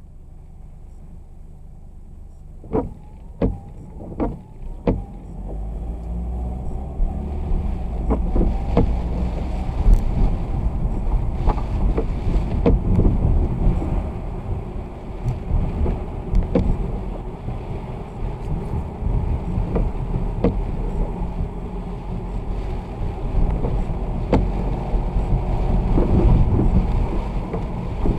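Vehicle driving on a wet road in the rain: a low rumble of engine, tyre and wind noise that builds from about six seconds in. Four sharp clicks come between about three and five seconds in, and scattered ticks follow.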